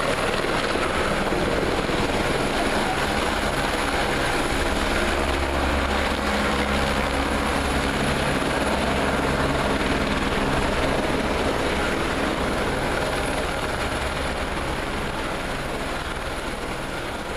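Light helicopter turbine and main rotor running close by, a steady whine and rotor noise that eases off a little near the end.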